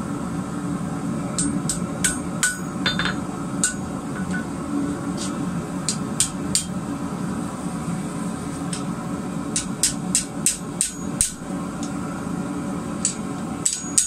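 Hand hammer striking a red-hot steel bar on an anvil, ringing blows coming in irregular groups as the bar's end is curled into a scroll. A steady rushing noise runs underneath the blows.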